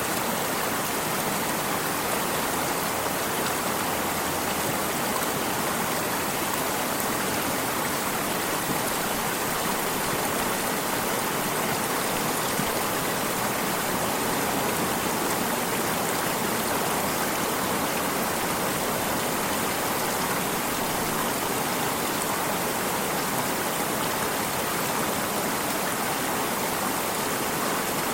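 Running water of a stream, a steady, even rush that does not change.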